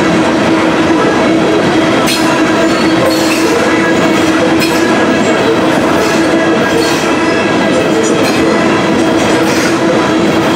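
Freight train's covered hopper cars rolling past close by: a loud, steady rumble of steel wheels on rail with a steady ringing tone underneath. Brief high squeals come every few seconds.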